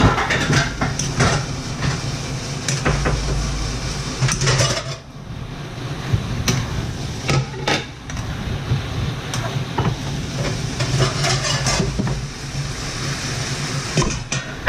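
Plastic spatula stirring and scraping sliced beef in a nonstick frying pan, with frequent clacks against the pan over a steady low hum.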